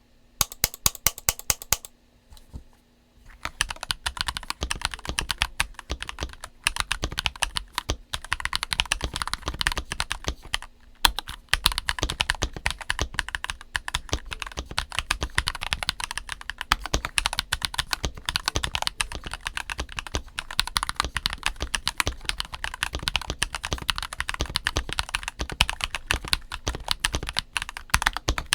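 NuPhy Halo96 96% mechanical keyboard, stock, being typed on: a short run of separate keystrokes, a pause of about a second, then fast, continuous typing.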